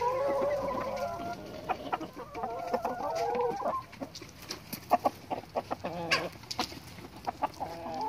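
Chickens clucking and calling, with two drawn-out wavering calls in the first half and then a run of short, sharp clucks.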